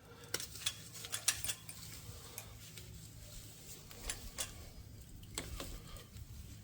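Scattered small clicks and light metallic taps of hands working a new fuel hose and hose clamp onto a fitting, over a faint steady low hum.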